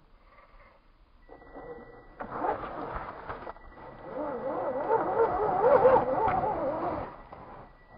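Electric motor and geartrain of a 1/10-scale RC rock crawler whining as it climbs a snowy rock, the pitch wavering up and down with the throttle. It starts about two seconds in, is loudest near the end, and stops about a second before the end.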